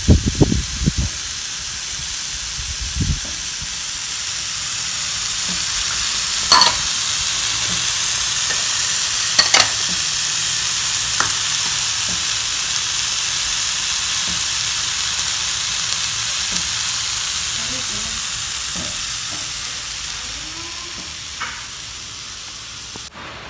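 Grated coconut, shallots, tomato and dried chillies still sizzling in a hot frying pan after the gas has been turned off, a steady hiss that fades toward the end as the pan cools. A few knocks come in the first three seconds and two sharp clicks come a few seconds apart.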